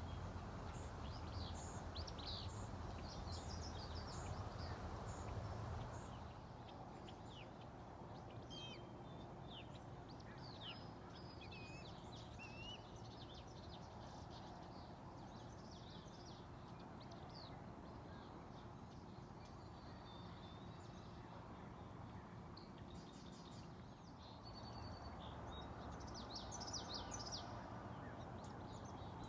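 Several small songbirds chirping and trilling over and over, over a steady low background rumble that is louder for the first few seconds and again near the end.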